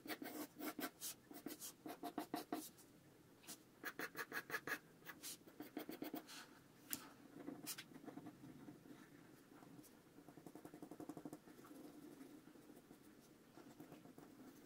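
Pencil sketching on paper: runs of quick short strokes, several a second, in bursts, then softer and fainter in the second half.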